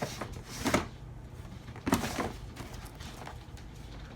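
Drawer being opened and rummaged through, with two sharp knocks a little over a second apart, then a few fainter rattles.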